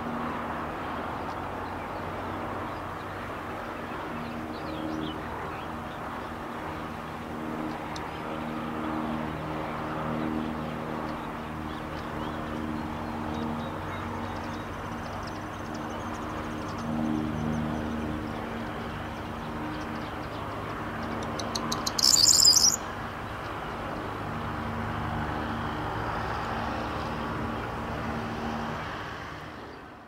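Corn bunting singing once, about three-quarters through: a short stutter of ticks that speeds up into a jangling rattle, lasting about a second. A low steady drone runs underneath.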